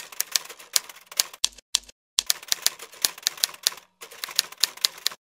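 Typewriter keys clacking in quick runs, about five or six strikes a second, broken by two short pauses and stopping about five seconds in: a typewriter sound effect.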